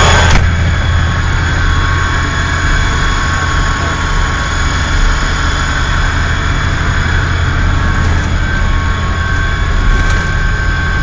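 Steady engine drone inside the cab of a 2TE10M diesel locomotive under way, from its two-stroke 10D100 diesel engines: a strong low hum with a few steady higher tones over it.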